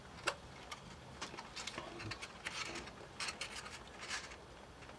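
Faint, irregular light clicks and scratches of a balsa-wood false rib being pressed by hand into a tight fit between the spars of a model aircraft wing.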